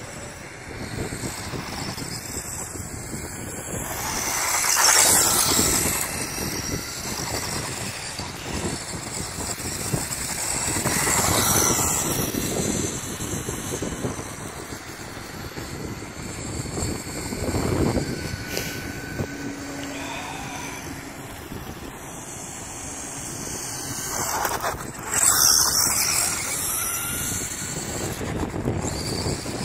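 Kyosho Turbo Optima electric RC buggy with a brushless motor running on asphalt, its motor and tyre noise swelling louder four times as it passes near, over a steady rush of wind on the microphone.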